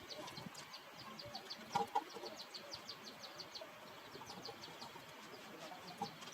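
Birds calling: a rapid run of high chirps, about five a second, with two short louder calls about two seconds in.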